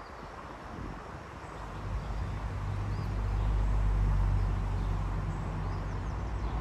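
A low engine hum, from a passing vehicle, builds up about a second and a half in, is loudest around four seconds, then slowly eases off, over faint high bird chirps.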